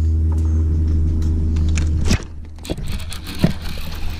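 Steady low hum of an electric trolling motor that cuts off suddenly about two seconds in, followed by scattered clicks and water noise as a hooked bass is fought on a bent baitcasting rod.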